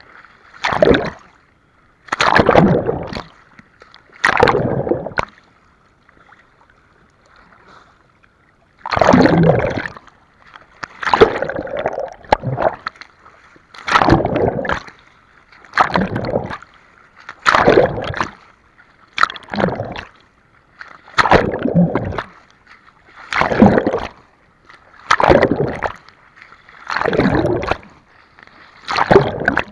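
Seawater splashing and sloshing right against the microphone in repeated surges, about one every two seconds, with a lull of about three seconds around six seconds in.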